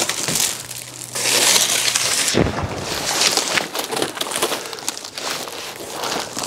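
A large cardboard template rustling, crackling and flexing as it is handled and spread out, scraping over plywood sheets.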